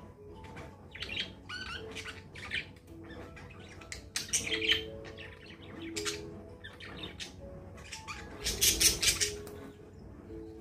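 Budgies chirping and squawking in quick, scratchy bursts while bathing, with fluttering wings splashing in water. The loudest burst of flapping and splashing comes about three-quarters of the way through.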